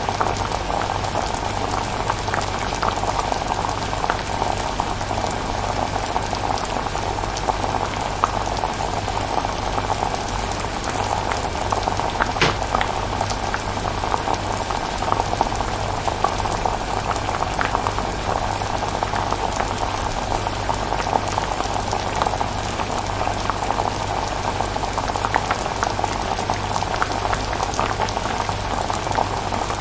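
A pot of chilli simmering, bubbling steadily with many small pops as bubbles burst, over a steady low hum.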